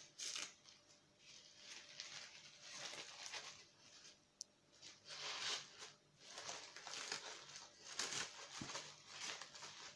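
Faint, irregular crinkling and tearing of a small soap bar's wrapping as it is pulled open by hand.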